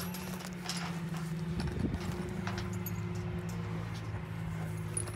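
An engine idling steadily, with scattered clicks and light knocks over it.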